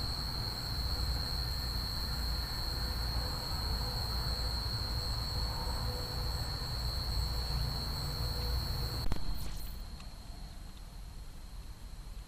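Night insect chorus, a constant high-pitched trill, over a low rumble; a click about nine seconds in, after which both are quieter.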